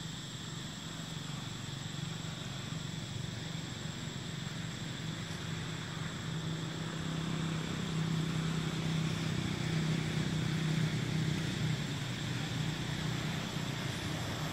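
A low engine drone that swells toward the middle and later part and eases a little near the end, over a steady high buzz of insects.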